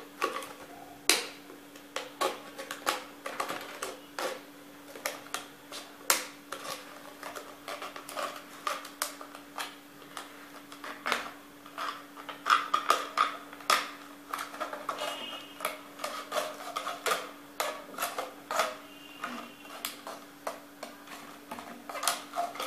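Thin plastic drink bottle being cut open with a pen knife: irregular crackles and clicks of the plastic as the blade works through it, over a steady low hum.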